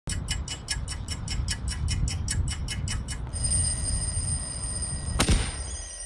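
Alarm-clock sound effect: rapid, even ticking or hammer strikes, about six a second, give way about three seconds in to a steady bell ring. A sharp hit comes about five seconds in, over a low rumble.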